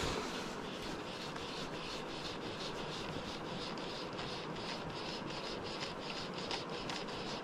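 Light scratching and rubbing close to the microphone, a string of faint irregular ticks over a steady hiss: the angler's hands, sleeves and fly line moving against the fly rod.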